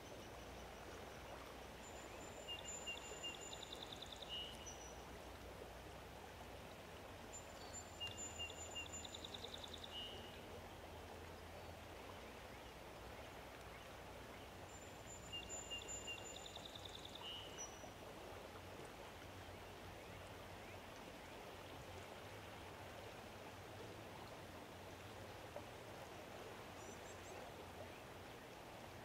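A songbird sings the same short, high phrase three times, several seconds apart, each phrase holding a quick trill. Underneath is a faint, steady outdoor rush.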